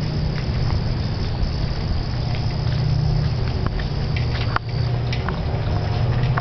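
Footsteps and a glass entrance door being pulled open, with one sharp click about two-thirds of the way through, over a steady low rumble.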